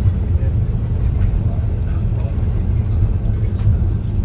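Airbus A330-300 on its landing rollout, heard from inside the cabin: a loud, steady low rumble of the jet and its wheels running along the runway.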